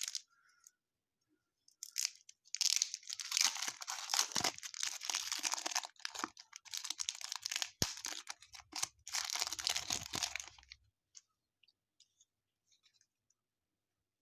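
Baseball card pack wrapper being torn open and crinkled by hand. The crackling starts about two seconds in, lasts about nine seconds and has a few short breaks.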